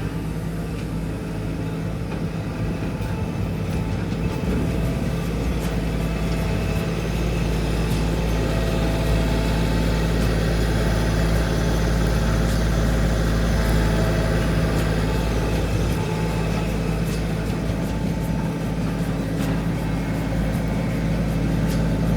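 An engine running steadily at a constant speed, with faint clicks and knocks over it.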